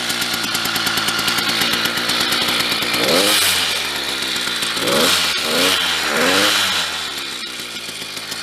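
Custom two-stroke motorized-bicycle engine with a bigger piston and home-built muffler, running with a rapid steady putter and blipped four times, about three, five, five and a half and six seconds in, each rev rising and falling back. After that it settles to a quieter idle. It runs well.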